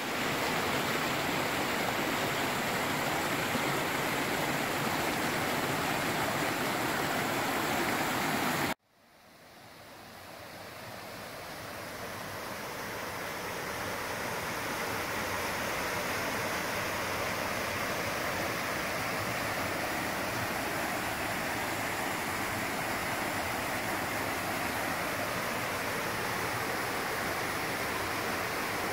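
Mountain stream rushing steadily over rocks. About nine seconds in it cuts off suddenly, and the sound of a small waterfall spilling into a pool fades back in over several seconds and then holds steady.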